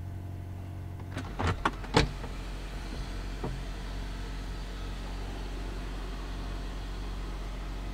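Jeep Wrangler engine idling steadily, with a few sharp clicks between one and two seconds in, the last the loudest.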